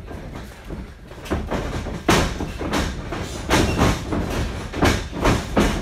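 A run of irregular heavy thuds and slaps from a pro wrestling ring, about half a dozen strong hits with the ring's boards booming under each one. They start about a second in and get louder.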